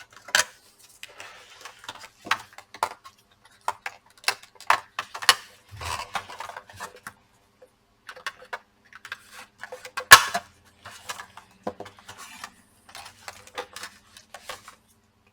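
Plastic bottom cover of a laptop being worked with a prying tool: irregular clicks, taps and short scrapes of hard plastic and metal, with one loud click about ten seconds in.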